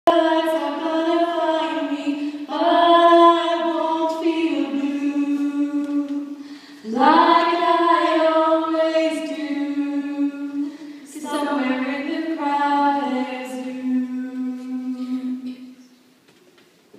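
Teenage girls singing together without accompaniment, in three long phrases of held notes. The singing stops about a second before the end.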